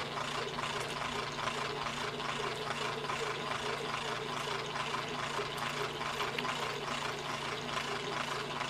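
A motor-driven machine running steadily, with a fast, even knocking rhythm and a steady hum.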